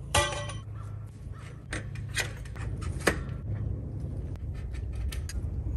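A crow cawing several times, with a few sharp knocks and a steady low wind rumble on the microphone.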